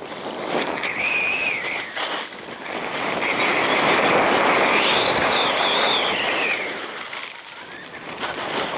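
Skis scraping and carving on hard-packed piste snow, the scrape swelling through a long turn in the middle, with a high whine from the edges that rises and falls with the turns.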